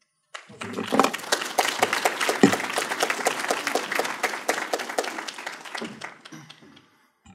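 Audience applauding, starting about half a second in and fading away over the last second or so.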